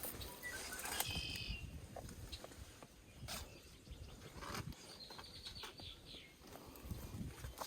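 Small birds chirping: quick runs of high notes about a second in and again around five seconds, over a low outdoor rumble, with a few sharp clicks.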